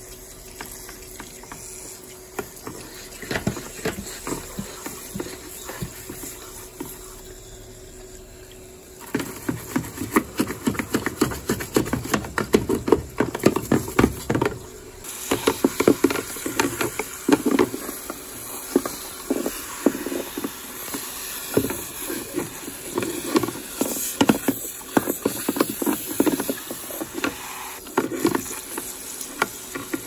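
Garden pressure sprayer's water jet hissing and splattering onto the plastic inside a washing machine's detergent-drawer housing. It starts as a steady quieter hiss and turns into louder, irregular splashing from about nine seconds in.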